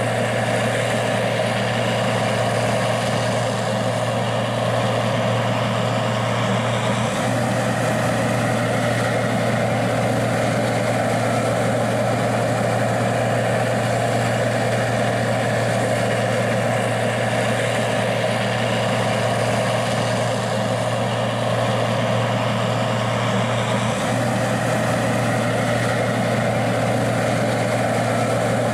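Gleaner R60 combine's diesel engine running steadily at constant speed: an even low drone that does not rise or fall.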